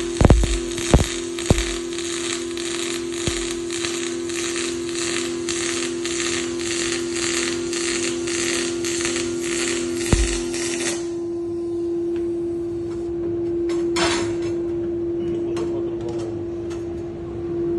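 Double-pulse MIG welding arc from a Jasic MIG 350 inverter welder: a dense crackling hiss that swells and fades in a quick, regular rhythm, with a few sharp clicks near the start. The arc cuts off suddenly about eleven seconds in, and a steady hum carries on.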